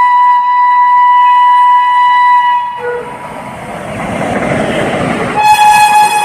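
WAP-7 electric locomotive's shrill horn sounding a long steady blast that stops about two and a half seconds in. The noise of the moving train follows, then a second blast, slightly lower in pitch, starts near the end.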